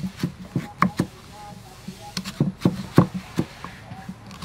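Cleaver slicing through a firm green mango and knocking on a wooden chopping board: a string of sharp, irregular knocks, with a short pause partway through.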